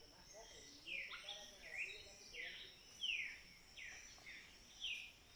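A wild bird singing a series of short whistled notes, each sliding down in pitch, about one to two a second, beginning about a second in.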